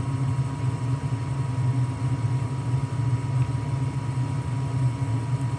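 Lennox gas furnace running steadily in heating mode with its newly replaced inducer fan motor: a smooth, even low hum with a thin steady tone above it and no rattle or grinding.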